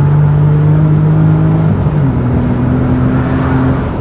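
BMW E30's engine running at steady revs while driving, heard inside the cabin; its pitch drops a little about two seconds in.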